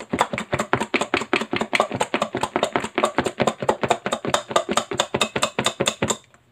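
A lidded stainless-steel bowl of lamb pieces in an oil-and-herb marinade being shaken hard by hand, the meat thrown against the bowl and lid in rapid, even knocks about six a second. This is the marinade being mixed through the meat. The shaking stops near the end.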